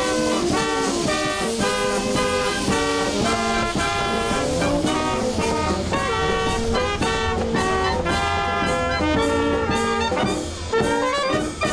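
Background music: an upbeat brass-band tune with a steady beat.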